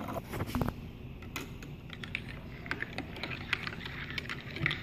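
Irregular light clicks and taps, with a few sharper knocks in the first second.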